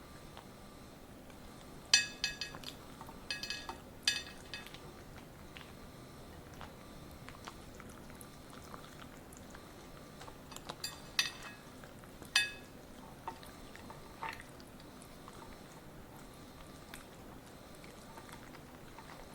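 A poodle biting and crunching raw broccoli: a few sharp, crisp crunches about two to four seconds in and again around eleven to twelve seconds, with quiet stretches of softer chewing between.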